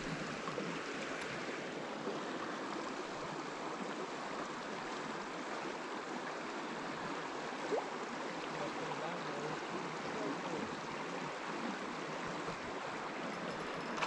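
Creek water flowing steadily: an even rushing hiss.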